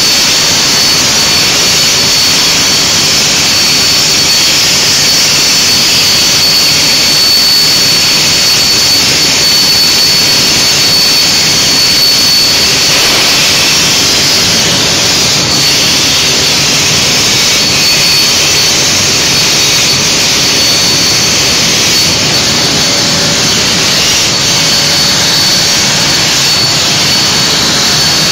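A CNC HyPerformance plasma torch cutting steel plate: a loud, steady hiss from the arc and gas jet, with a thin high whine held over it.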